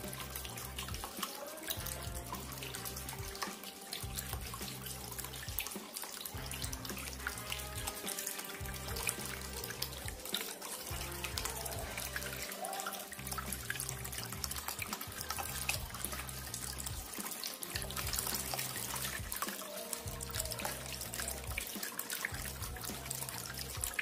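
Water pouring from spouts of a tiered cement waterfall fountain, splashing and trickling steadily into the bowls below, over background music with a bass pattern repeating every two seconds or so.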